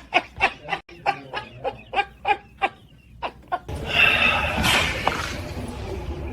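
Laughter: a run of short, rhythmic "ha" bursts, about three a second. At about four seconds the laughter gives way to a loud, rough rush of noise that settles into a steady background.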